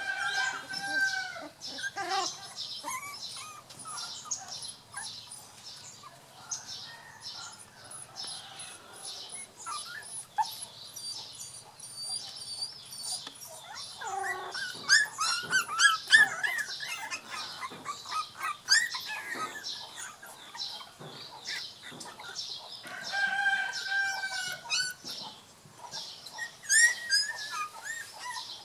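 Young puppies whimpering and yelping in short, high cries, loudest about halfway through, with birds chirping in the background.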